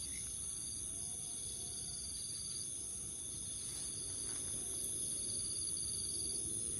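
Night insects, crickets among them, trilling steadily in high-pitched, pulsing chorus over a low background hum.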